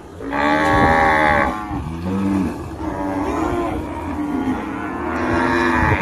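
Cattle mooing: a run of long, loud moos one after another, the loudest in the first second and a half.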